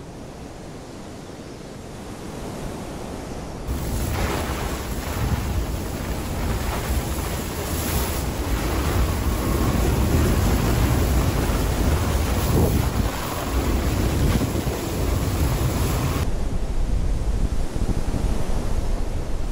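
Strong squall wind blowing over a sailboat, buffeting the microphone with a heavy low rumble, over the rush of rough, white-capped water.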